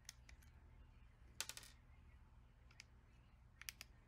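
Faint clicks and ticks of a hex screwdriver working the motor-plate screws out of a plastic airsoft pistol grip, with a short burst of clicks about a second and a half in that is the loudest.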